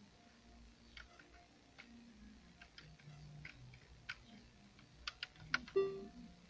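Volkswagen RCD 500 six-disc CD changer mechanism clicking and ticking irregularly over a faint low hum as it tries and fails to load a disc: the sign of the changer fault behind its LOAD CD ERROR. Near the end a short electronic beep, the loudest sound, comes from the head unit.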